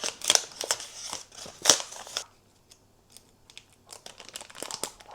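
Crinkling, rustling and light clicks of a matcha container and its packaging being opened and handled, with one sharp knock a little under two seconds in. It pauses briefly, then small scratchy clicks start again.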